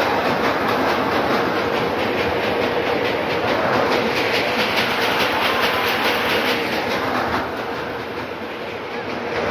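Metal fairground swing ride clattering and rattling as it moves, a fast steady clatter of small knocks with a faint hum underneath; it eases off a little about eight seconds in.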